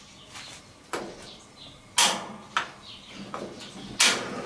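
Burner knobs of a Coobinox gas grill turned to light the burners, the igniter snapping with sharp clicks, about four in all, the loudest about two seconds in and just before the end.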